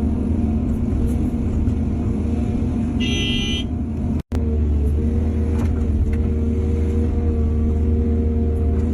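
Excavator's diesel engine running steadily under work, with a low, even drone. A short high-pitched beep sounds about three seconds in, and the sound cuts out for an instant just after four seconds.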